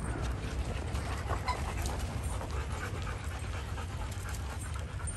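Several dogs panting, with scattered light clicks.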